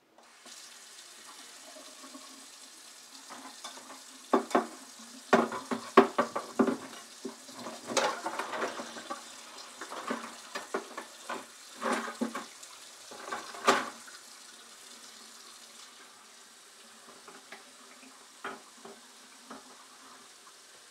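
Kitchen faucet running steadily into a sink while dishes are washed by hand. Pots, dishes and a knife clatter against the sink and each other, mostly in the middle stretch, with a couple of knocks near the end.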